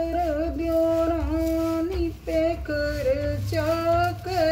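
A woman singing a bhajan on her own, holding long notes that bend and slide between pitches.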